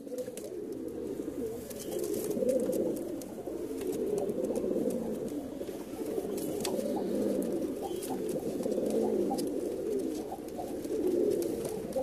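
Domestic pigeons cooing continuously, a dense overlapping murmur of coos, with a male puffed up and bowing over a hen in courtship. Scattered light clicks sound through it.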